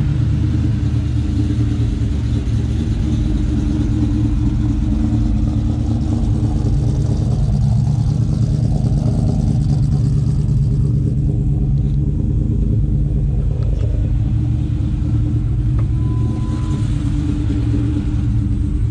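Supercharged V8 of a 2003 Ford Mustang Mach 1 idling steadily at about 1,000 rpm while it warms up after being started.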